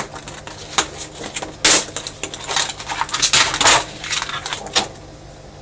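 Clear plastic folder sheet and paper crackling and rustling in irregular bursts as they are handled and pulled apart, the loudest crackle about a second and a half in.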